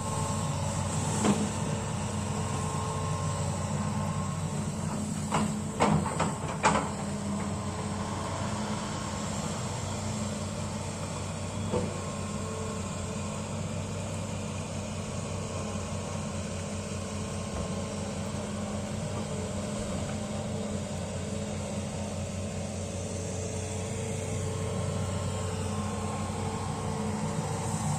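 Hitachi excavator's diesel engine running steadily, with a few sharp knocks: one about a second in, several around five to seven seconds, and another near twelve seconds.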